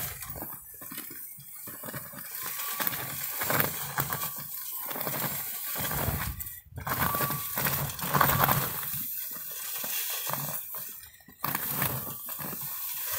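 Small remote-controlled snow plow pushing snow across pavement: the steel blade scraping and shoving snow while the chained wheels crunch and clink, coming and going in uneven stretches with two brief breaks.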